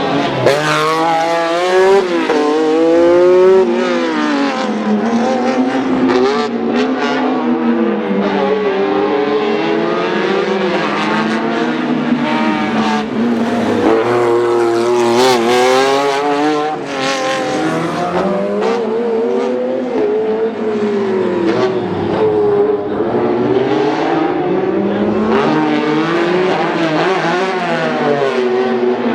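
Lancia Stratos rally car's Ferrari Dino V6 revving hard on a stage, its engine note climbing and dropping again and again through gear changes and lifts.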